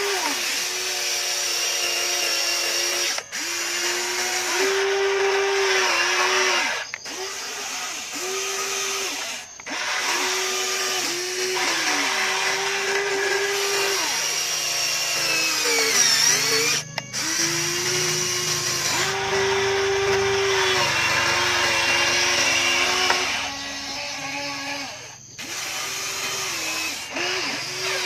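Electric motors of a radio-controlled toy excavator whining as they drive the boom, arm and bucket. The whine starts and stops every second or two and steps up and down in pitch as different motions run.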